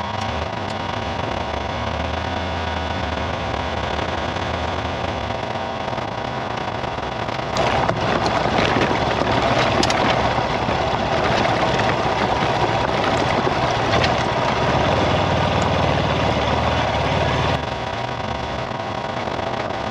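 A vehicle engine running steadily as it drives along a loose gravel track. About seven seconds in, a louder rushing noise with scattered clicks joins it, then stops abruptly about ten seconds later.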